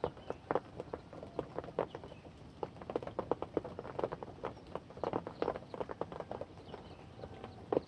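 Rain falling: heavy drops tap irregularly close by, several a second, over a faint steady hiss.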